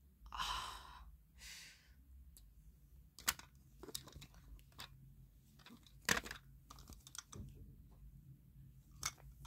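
Hard plastic toy pieces being handled: two short scraping rustles near the start, then scattered light clicks.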